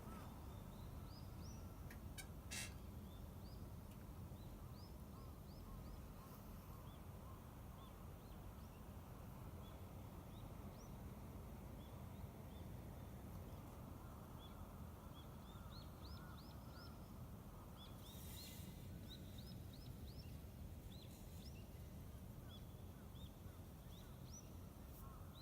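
Small birds chirping faintly: many short, quick, rising calls scattered throughout over a steady low background rumble. There is a brief swell of hissy noise about eighteen seconds in.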